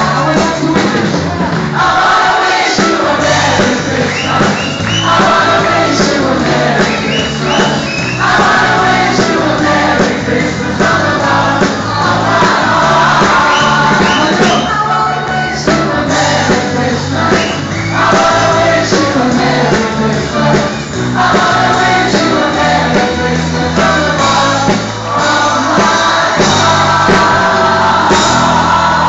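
A crowd singing along to an amplified, upbeat Christmas song sung in English and Spanish, with band music underneath.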